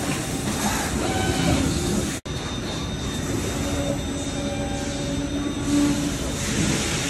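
A 280-ton JSW J280AD all-electric injection molding machine and the shop machinery around it running: a steady mechanical din with faint whining tones that come and go. The sound cuts out for an instant about two seconds in.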